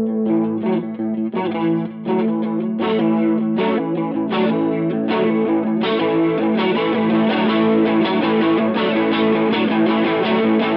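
Electric guitar played through a Mooer Ensemble King chorus pedal. Chords are struck one at a time with gaps for the first half, then strummed continuously.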